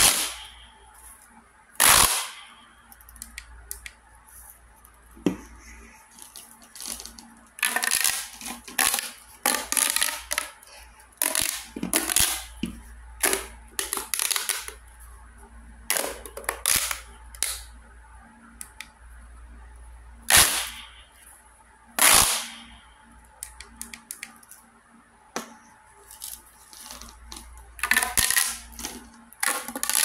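Orange LED pop tube fidget toy being stretched, squeezed and bent: its corrugated plastic ridges snap out and in with sharp single pops and runs of quick crackling clicks. The loudest pops come near the start and twice about two-thirds of the way through.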